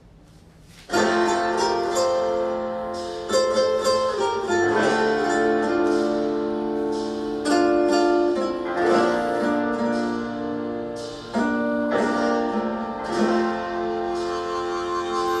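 Instrumental introduction of a country ballad, led by plucked guitar chords with sustained notes, starting about a second in and changing chord every few seconds.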